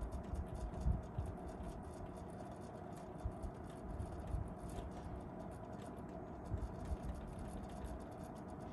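TEAC A-630 cassette deck's tape transport running: a faint, steady mechanical whir, with irregular low thuds scattered through.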